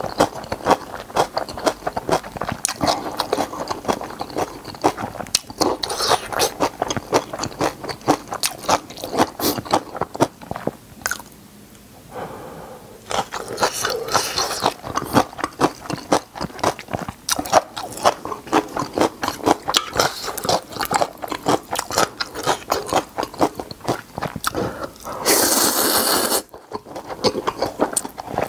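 Close-miked eating sounds of spicy instant noodles with napa cabbage kimchi: a quick, dense run of crunching and chewing. There is a brief lull about eleven seconds in and a second-long noisy rush near the end.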